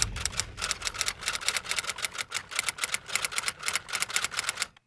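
Rapid, even typewriter-like key clicks, about eight a second, with a brief pause near the end.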